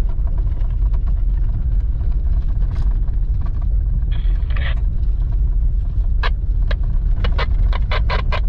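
Car driving on a rough dirt road, heard from inside the cabin: a steady low rumble of engine and tyres, a short scraping rattle about four seconds in, then a quickening run of sharp knocks and rattles over the last two seconds or so as the car jolts over the bumps.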